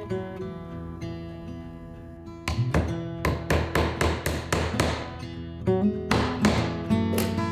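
Background music: acoustic guitar holding chords, then strummed in a quick, even rhythm from about two and a half seconds in.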